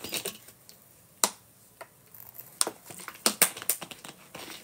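A clear plastic water bottle being handled, giving a scattering of sharp clicks and crackles of the plastic, sparse early on and bunching together in the second half.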